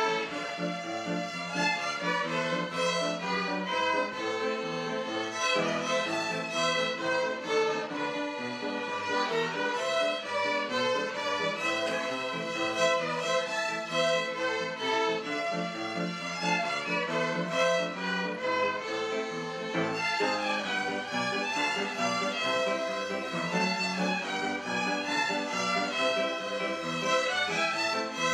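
A children's violin ensemble playing a piece together, with continuous bowed melody.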